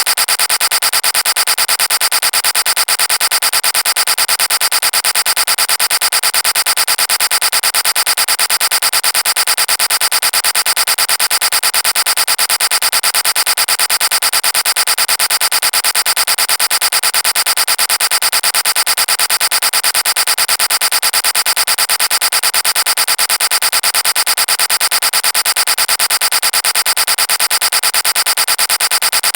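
The 'vine boom' meme sound effect repeated so rapidly and densely that the booms merge into a steady, harsh buzz with little bass.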